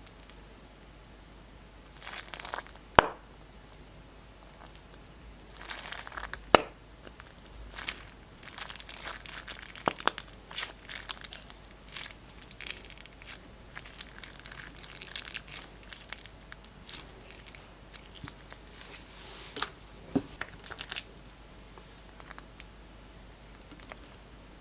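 Plastic piping bag and glossy slime being handled and squeezed: irregular crinkling and crackling, with scattered sharp clicks, two of them loud in the first third.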